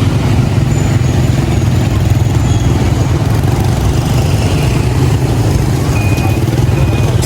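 A truck's engine running with a steady low rumble. About six seconds in, a reversing alarm starts, giving short high beeps repeated roughly every two-thirds of a second.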